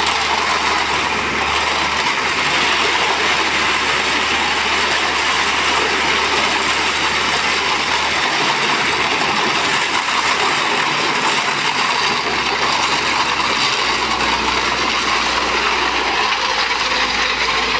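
Ajax hydraulic pump running steadily under test: a loud, even mechanical noise over a low hum, and the hum drops out for a few seconds around the middle.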